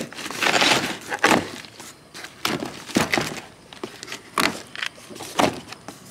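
Scattered knocks and clunks of things being handled, with a short rustling hiss under a second in.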